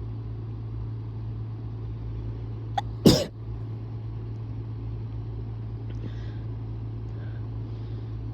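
A person sneezes once, sharply and loudly, about three seconds in, with a quick intake of breath just before it and faint breathing afterwards. The sneeze is part of a sneezing fit from an illness the person hopes is just a cold but fears may be flu. A steady low hum runs underneath.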